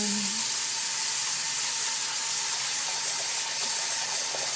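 A tap running full, filling a basin with water: a steady hiss of pouring water.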